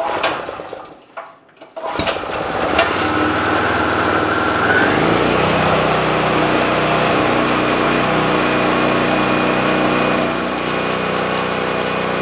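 Generac GP3250 portable generator pull-started on choke: a few tugs of the recoil starter, then the engine catches about two seconds in, revs climb for a few seconds and it settles into a steady run. A cold start after years unused, on a freshly refitted carburetor.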